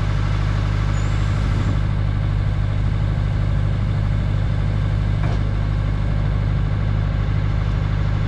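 Diesel engine of a Boart Longyear DB100 crawler drilling rig running steadily with a deep, even hum while its hydraulics lower the drill mast.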